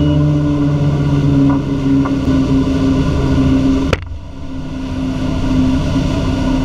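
Motorboat engine running steadily at cruising speed, with rushing water and wind from the churning wake. About four seconds in, a sharp click and a brief drop in level break the drone, then it steadies again.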